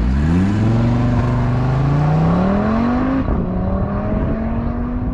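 Audi RS3's 2.5-litre turbocharged five-cylinder engine accelerating hard from a standing start on the stock exhaust with its valves open. The note climbs steadily, dips at an upshift about three seconds in, then climbs again as the car pulls away.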